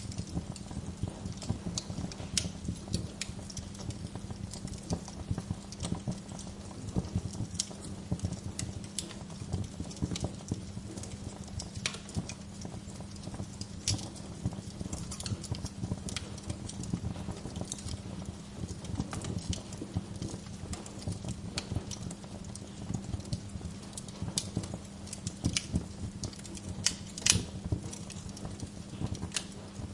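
Wood fire crackling in a fireplace: a steady low rumble of burning logs with dense fine crackle and scattered sharp pops, one louder pop near the end.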